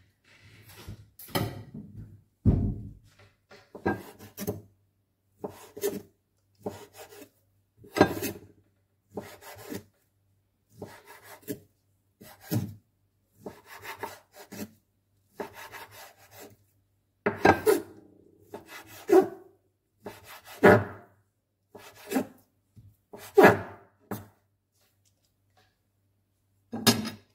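Kitchen knife cutting turkey breast into strips on a wooden cutting board: a run of short strokes, roughly one a second, each blade stroke drawing through the meat onto the wood. Near the end there is a pause of about two seconds, then one last stroke.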